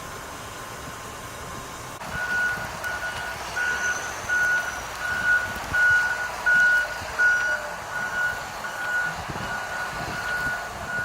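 Vehicle reversing alarm beeping at an even pace, a little under two beeps a second, starting about two seconds in over a steady background noise.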